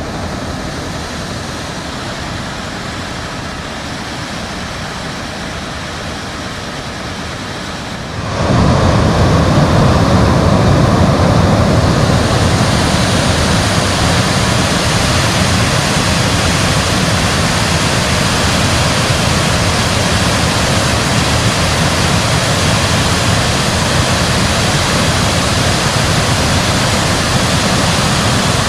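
Waterfall's steady rush of falling water, becoming suddenly louder and fuller about a third of the way in.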